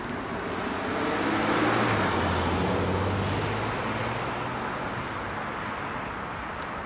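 A Škoda Superb drives past across the level crossing: tyre noise with a low engine hum. It swells to its loudest about two seconds in, then slowly fades away.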